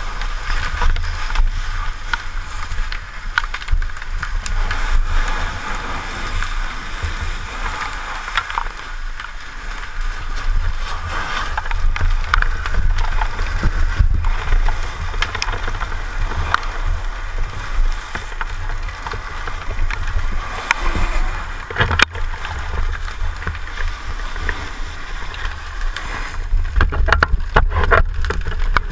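Fire hose nozzle spraying a jet of water into a burning room: a steady hiss and splash of water over a low rumble, with scattered small knocks and one sharp knock about three-quarters of the way through.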